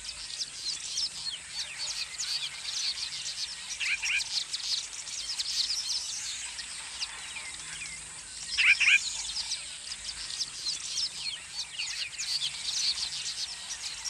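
A weaver bird colony chattering: a dense chorus of many quick, high chirps, with a louder, lower call about four seconds in and again near nine seconds.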